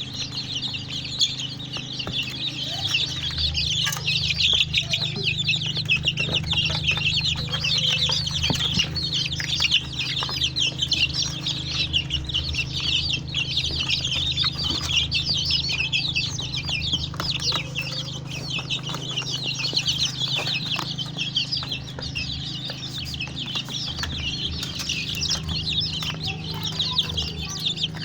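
A flock of four-week-old native Nigerian chicks peeping continuously, a dense chorus of many overlapping high cheeps, over a steady low hum.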